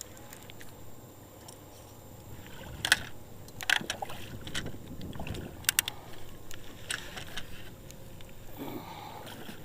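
Scattered sharp knocks and clicks of handling on a fishing boat, the loudest about three seconds in, over a low steady rumble.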